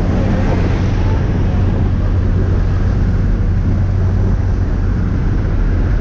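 Light aircraft's propeller engine running steadily as a loud, low hum, with wind rushing in through the open door in flight.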